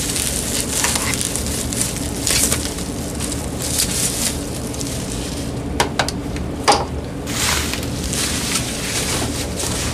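Plastic bubble wrap and a plastic bag crinkling and rustling in the hands as they are pulled off a small cordless-phone charger cradle, with a few sharp clicks about six seconds in.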